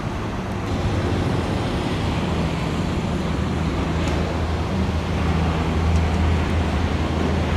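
Motor-vehicle traffic: a large engine runs steadily amid road noise, its low hum growing louder about five seconds in.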